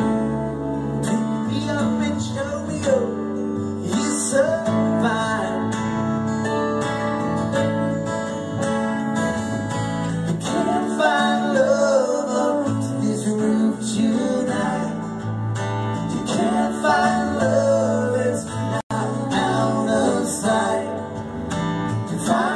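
Live acoustic rock band playing an instrumental passage: strummed acoustic guitar and upright bass, with a melody line that bends in pitch over them. The sound drops out for an instant about three-quarters of the way through.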